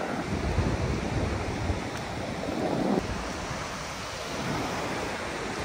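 Ocean surf washing onto a sandy beach, with wind buffeting the microphone in a low rumble that is strongest in the first few seconds.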